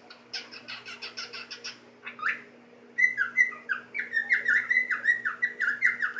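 Pet cockatiel singing: a quick run of soft high chirps, then from about three seconds in a louder, fast string of short whistled notes, about five a second, each one slurring in pitch.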